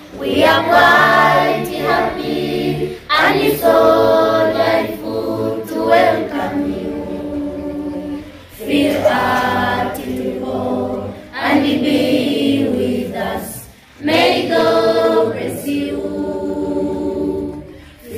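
A children's choir singing together in phrases of a few seconds each, with short breaks between them.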